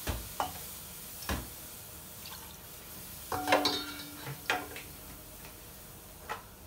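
A few light clinks and knocks of kitchenware, one of them ringing briefly a little after three seconds in, over a faint steady hiss.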